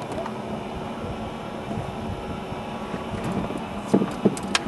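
A motor hums steadily, with a few sharp knocks and clicks close together near the end.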